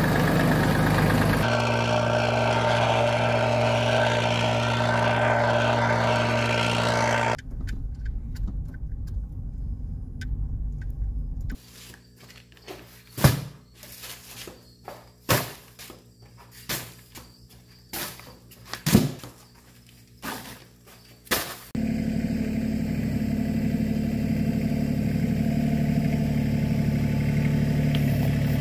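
LS compact tractor's engine running steadily, heard in separate clips cut together. In the middle stretch the engine gives way to a run of sharp, irregular knocks, about one a second, several of them loud.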